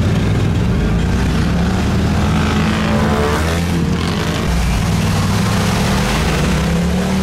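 ATV and side-by-side engines running and revving through mud, with a quick rev rising in pitch about three seconds in.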